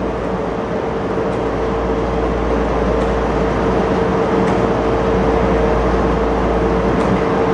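Steady room noise: a constant rushing hiss over a low rumble, with an unchanging mid-pitched hum and a few faint ticks.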